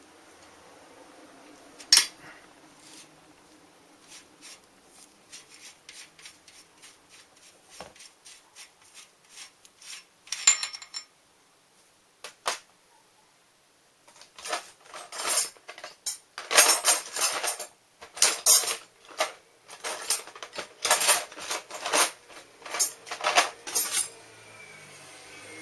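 Metal hand tools and small bicycle parts clinking and clattering. There is a sharp click about two seconds in, then light scattered ticks, a brief clatter, and a longer run of dense clattering near the end.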